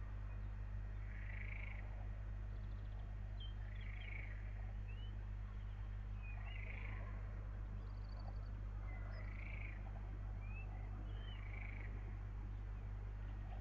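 A night animal calling, a short call repeated about every two to three seconds, with small chirps between, over a steady low electrical hum.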